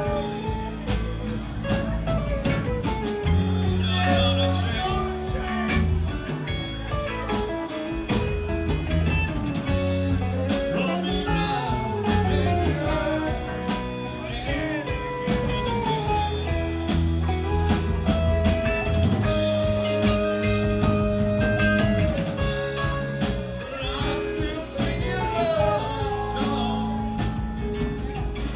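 Live rock band playing: electric bass, drum kit, electric guitars and keyboard in a bluesy jam.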